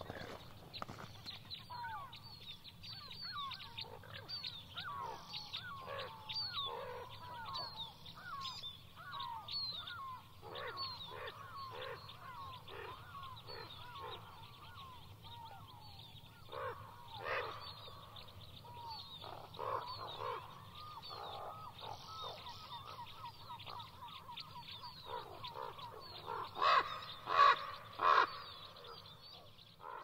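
Many birds calling at once, short chirping calls overlapping without a break, with a few louder, harsher calls near the end.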